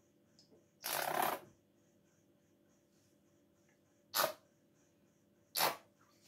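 Plastic squeeze bottle of tomato sauce sputtering as sauce and air squirt out: one longer splutter about a second in, then two short ones later.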